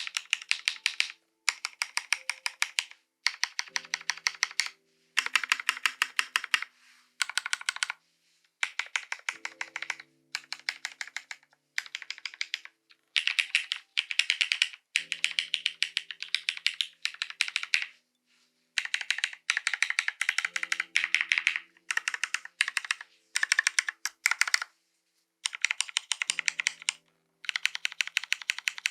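Mechanical keyboard being typed on in quick runs of keystrokes, each lasting a second or two with short pauses between. The keyboard is a Bina 103 with Cherry Hyperglide Black linear switches on a half aluminium plate, with Cherry G81-3081 keycaps and no foam.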